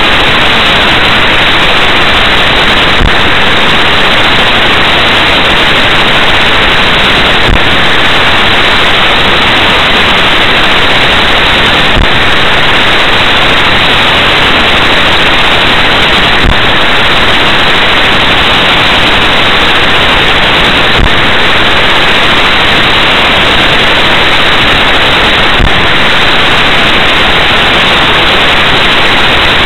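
Loud, steady hiss from a car dashcam's audio, with a faint tick about every four and a half seconds.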